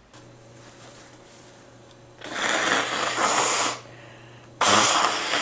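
A person blowing their nose hard. There is one long blow a couple of seconds in, then a second, sudden blast near the end.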